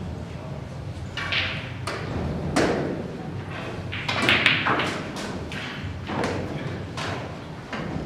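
Snooker balls in play. A sharp click comes about four seconds in, as the cue strikes the cue ball and the balls clack together. Further knocks follow as balls hit the cushions and the blue drops into a pocket.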